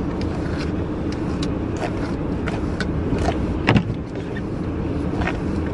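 Steady low rumble of a running car heard from inside the cabin, with scattered light ticks and a dull thump a little past the middle.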